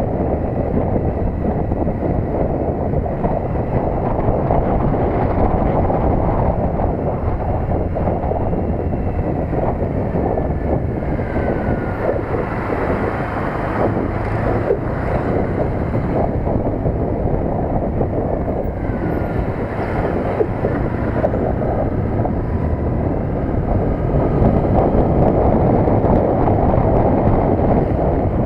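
Triumph Bonneville T100's parallel-twin engine running steadily on the move, mixed with heavy wind noise on the camera's microphone. A faint falling whine comes twice around the middle.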